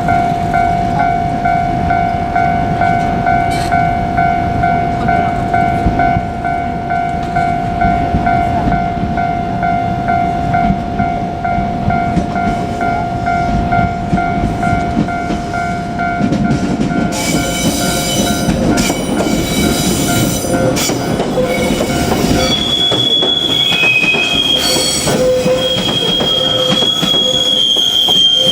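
Level-crossing warning bell ringing steadily over the rumble of an approaching JR Kyushu 817 series electric train. About two-thirds of the way in the train passes close by with sharp clicking from its wheels. Near the end high-pitched wheel squeal sets in.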